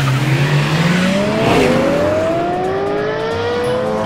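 Race car engines accelerating hard from a standing start. A low engine note and a higher one, which joins about a second in, both rise steadily in pitch as the cars pull away.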